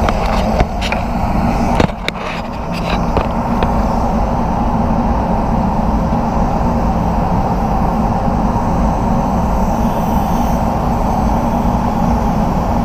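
Spray booth air moving with a steady, loud low drone, with a few light clicks and knocks in the first few seconds.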